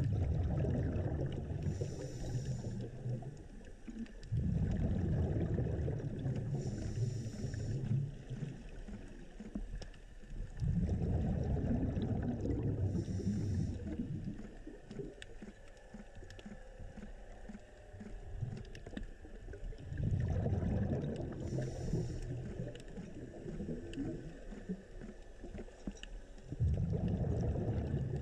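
Underwater breathing through a scuba regulator: about five long rushes of exhaled bubbles every several seconds, each followed by a short high hiss as the next breath is drawn.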